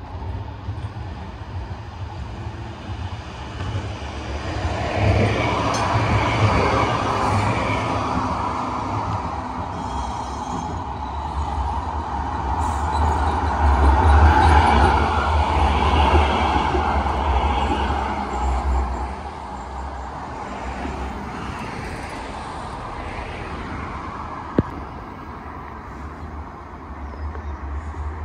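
Sheffield Supertram Siemens-Duewag articulated electric tram running past on street track, growing louder over the first few seconds, loudest about halfway through, then fading away. A single sharp click comes about three-quarters of the way through.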